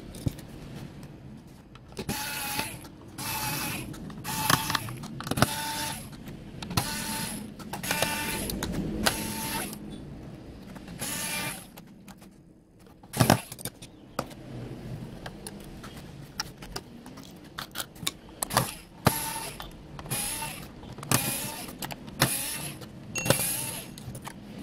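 Electric screwdriver driving screws out of the speaker's circuit board: many short bursts of a small motor whine, each under a second, with handling clatter between them and one sharp knock partway through.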